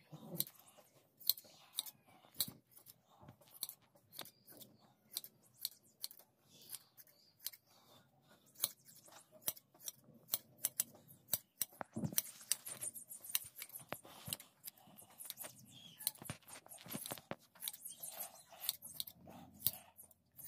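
Hand shears (large red-handled scissors) snipping through a sheep's fleece during hand shearing: a run of sharp, irregular snips, about two a second.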